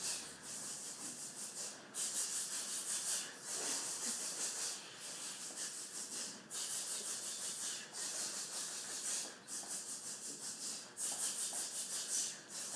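A roomful of band students clapping a repeating rhythm together, the many hands blurring into a steady patter. A short gap comes on each downbeat, about every second and a half. There is too much space on beat one, so the rhythm is slowing down.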